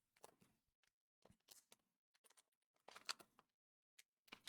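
Faint, scattered clicks and rustles of Kayou trading cards being handled and slid one behind another, the loudest cluster about three seconds in.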